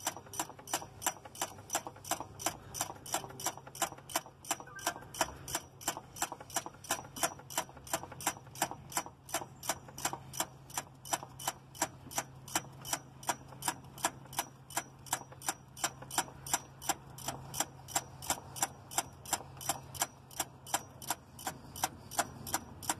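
Steady, evenly spaced mechanical ticking, about three clicks a second, over a faint low hum.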